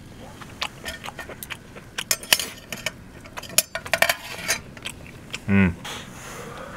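Metal camp cookware and utensils clinking and clicking as they are handled, most busily in the middle, with a short low voiced grunt about five and a half seconds in.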